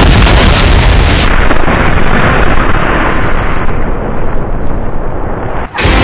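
Explosion sound effect: a loud blast whose crackle dies away after about a second, leaving a rumble that grows duller over several seconds and then cuts off sharply near the end.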